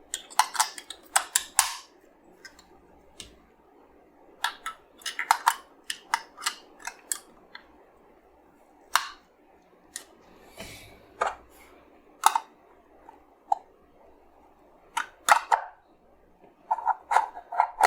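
Two AA batteries being fitted into the plastic battery compartment of a small battery-powered desktop vacuum cleaner, with several groups of sharp plastic clicks and clatter as the cover is handled and locked shut.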